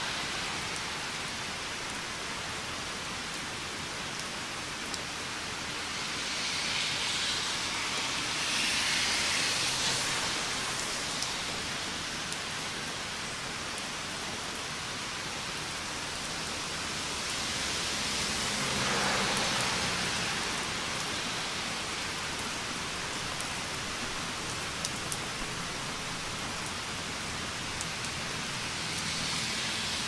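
Steady rain falling on a street, a dense even hiss with scattered drop ticks. The hiss swells louder and fades away twice, about a quarter of the way in and again past halfway.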